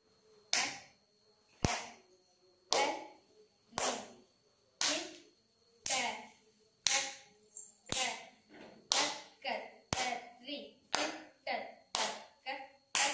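Hand claps and palm taps keeping Adi tala, the eight-beat Carnatic rhythm cycle: sharp strokes about one a second, with extra strokes filling in between from about eight seconds in.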